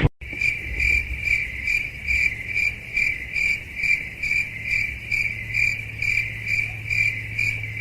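Cricket chirping in an even rhythm, about three chirps a second, over a faint steady low hum.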